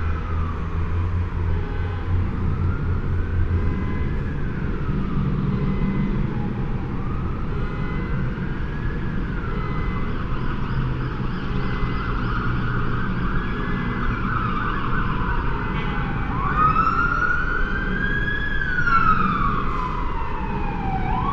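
An emergency vehicle siren wailing in slow rise-and-fall sweeps, about one every four to five seconds, growing louder and clearer in the last few seconds, over a low steady rumble.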